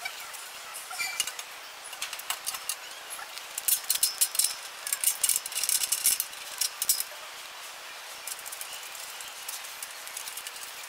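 Metal hardware clinking and rattling as a roller bracket is fitted and fastened onto a steel frame by hand, in quick irregular bunches of sharp clicks that are busiest in the middle.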